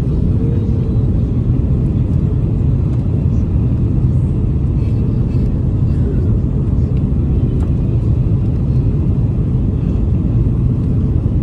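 Steady low rumble of cabin noise inside an Airbus A330-300 airliner: engine and airflow noise heard from an economy seat, unchanging throughout.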